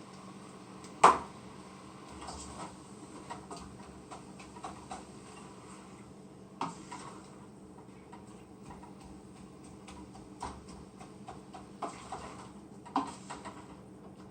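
Scattered light clicks and knocks of kitchen utensils and cookware at the stove while ground beef is browning, with one sharp knock about a second in, over a faint steady low hum.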